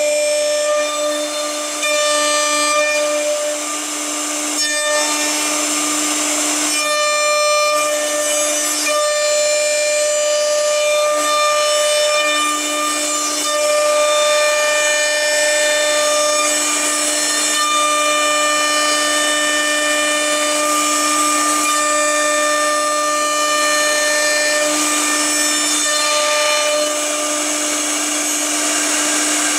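CNC router's HSD spindle running with a steady high whine while the cutter mills along a frame profile, over a rushing hiss of cutting.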